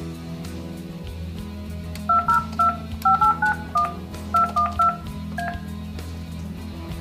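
Touch-tone (DTMF) keypad beeps from a Yealink T29G desk phone as a ten-digit number is dialed in speaker mode: a quick run of about ten short two-tone beeps beginning about two seconds in.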